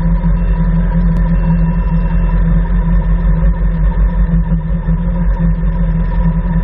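BMW S1000RR's inline-four engine idling steadily, heard through a camera mounted on the bike itself.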